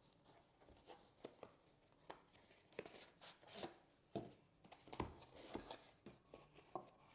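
Faint cardboard packaging being handled: a paper sleeve slid off a small cardboard box and the box lid opened, with scattered soft rustles and taps.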